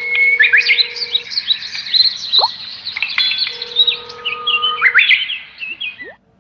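Many small birds chirping and twittering in a dense chorus, with a few held plain tones underneath; it fades away near the end.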